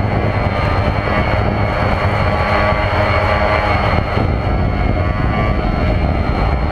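Electric motor and propeller of a radio-controlled model airplane running steadily in flight, heard from a GoPro mounted on the plane: a constant drone with a high steady tone over rushing noise.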